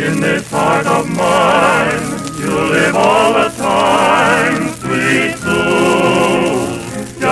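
Music: a vocal group singing with heavy vibrato, in short phrases broken by brief pauses.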